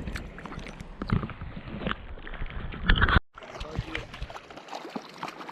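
River water splashing and rushing close to the microphone, with scattered knocks and handling noise. A little past halfway it cuts off suddenly, and steadier flowing water with some wind on the microphone follows.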